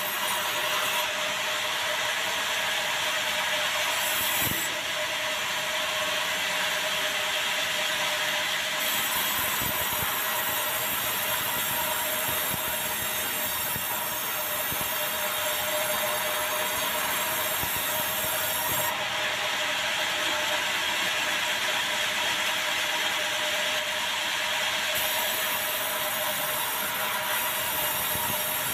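Sawmill saw running steadily and cutting lengthwise through a large log of dry, very hard bengkirai (yellow balau) timber, a continuous mechanical whir with a steady hum.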